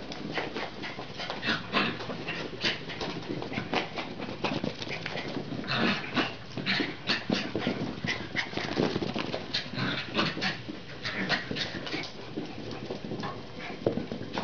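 A small dog making short, sharp play noises at irregular intervals as it romps with two piglets.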